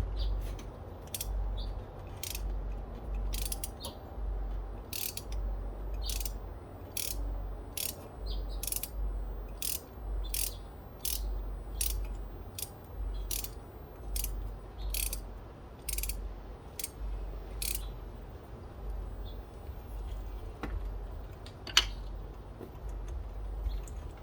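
Ratchet wrench on an extension and 5/8 spark plug socket clicking in a slow, uneven run, one click every half second or so, as a spark plug is turned out of the engine. The clicking stops about three quarters of the way through, and a single sharper knock comes near the end.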